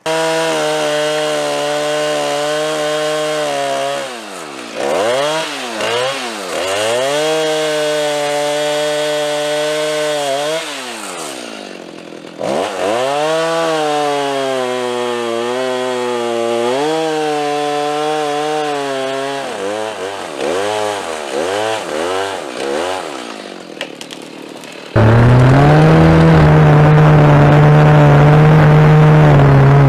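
Chainsaw engine running at high revs, its pitch dropping toward idle several times and climbing back up. About 25 seconds in it gives way abruptly to a louder, steady high-rev run.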